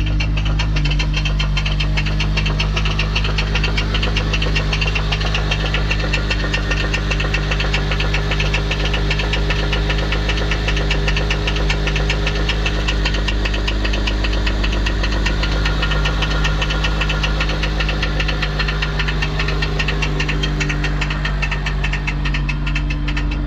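Honda Civic Si's 2.4-litre K24 four-cylinder running steadily with a fast, even metallic rattle over the engine note. The owner takes it for a failed transmission component, and the accessory belt is wearing.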